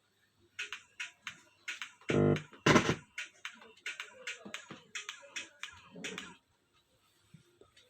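Music in short, choppy bursts, with two louder deep booms about two and three seconds in, over a faint steady low hum; it stops about a second and a half before the end.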